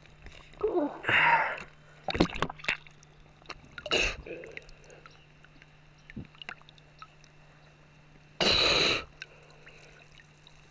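Water sloshing and splashing against the camera at the river surface, in several short bursts with a louder half-second rush of noise near the end, over a faint steady hum.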